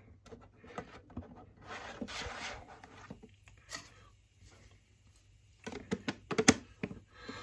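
Cardboard Funko Pop box being handled into a clear plastic protector case: rubbing and rustling of cardboard against plastic, then a cluster of sharp plastic clicks near the end.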